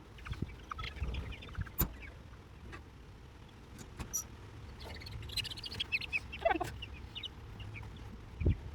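Young chickens peeping and chirping in the coop, with short calls scattered throughout and busiest a little past the middle, mixed with a few sharp clicks and rustles.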